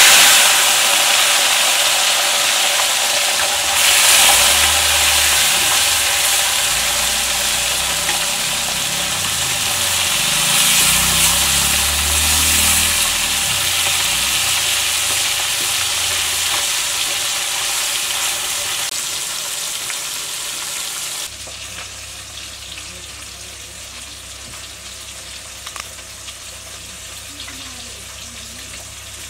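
Small fish frying in hot oil in an iron wok: a loud, steady sizzle that swells a few times, then drops abruptly to a much quieter hiss about two-thirds of the way through.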